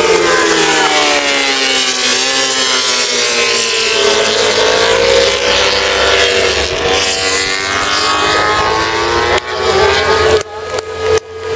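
Racing motorcycle engines at high revs as bikes pass on the circuit, the engine pitch dipping and then rising again. The sound cuts out briefly twice near the end.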